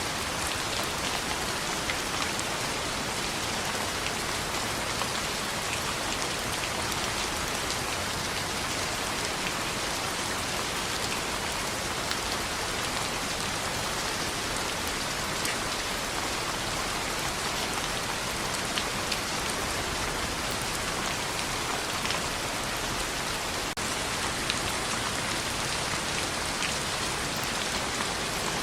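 Steady rain on a window, an even hiss dotted with scattered light ticks.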